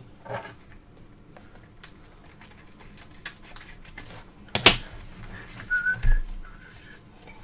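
Trading cards and their packaging being handled: scattered light clicks and rustles, with one sharp snap about four and a half seconds in. A few short soft whistled notes follow.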